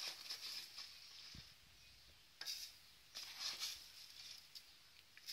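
Faint rustling of a paper bag of breadcrumbs and a spoon scooping the crumbs and tipping them into a plastic food-chopper bowl, in a few short bursts, the clearest a little over two seconds in and again about a second later.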